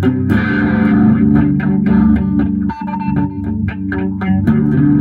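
Instrumental music led by guitar, with bass and a steady beat; it dips briefly near the middle before a held higher note comes in.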